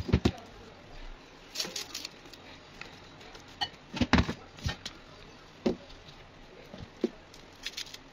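Scattered knocks and light taps of hands, herbs and dishes against a porcelain plate, a glass bowl and the tabletop while fresh herbs are sorted by hand; about seven separate knocks, the loudest at the start and around four seconds in.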